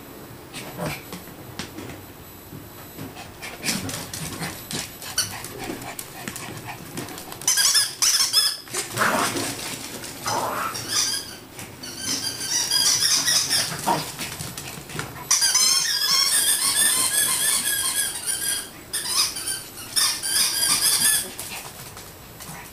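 Pomeranian at play during a bout of zoomies: light knocks and scrabbling at first. From about seven seconds in come long runs of loud, high-pitched warbling squeaks that stop and start several times.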